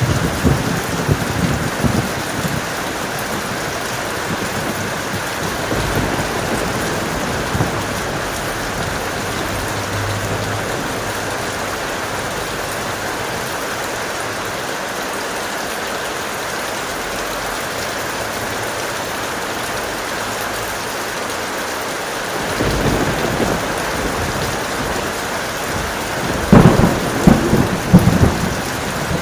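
Heavy rain falling steadily, with thunder rumbling at the start and twice more near the end, the last roll the loudest.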